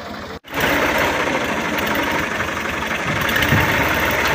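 Ghazi tractor's diesel engine running loud and close. The sound cuts out briefly about half a second in, then the engine carries on steadily.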